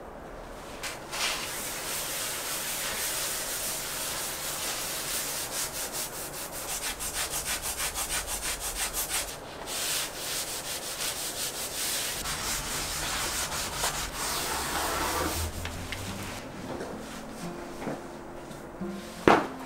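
Brisk scrubbing with stiff bristles on a tile floor, in quick rhythmic strokes of about four a second at their fastest, with a short pause partway through. Soft music comes in near the end, and two sharp knocks sound just before it stops.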